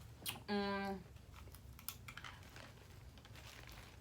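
A short held vocal hum from a person, about half a second long and ending around a second in, followed by faint soft crinkling and light clicks.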